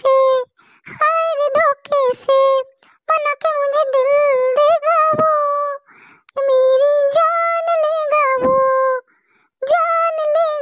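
A high, pitched-up cartoon character's voice singing a song unaccompanied, in several phrases with short breaks, holding its notes near the end.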